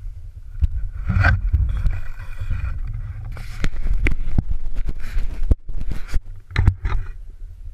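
Wind buffeting an action-camera microphone as a low rumble, with irregular scrapes and sharp knocks from gloved hands handling the camera and ski gear on snow.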